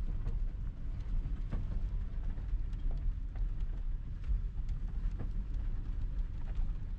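Cabin noise of a Toyota pickup truck crawling over a rough dirt trail: a steady low rumble from the engine and tyres, with scattered knocks and rattles as it jolts over stones.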